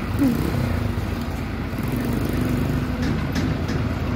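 Farm tractor engine running steadily under way while towing a forage harvester, with a few faint clicks in the second half.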